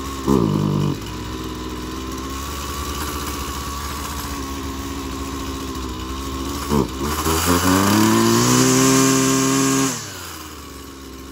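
Husqvarna 129L 27 cc two-stroke string trimmer idling, revving briefly early on, then blipping and revving up to a held high speed for about three seconds. The revs then fall away and the engine dies near the end, a stall the owner puts down to the carburettor needing adjustment on a new trimmer or the engine not being fully warmed up.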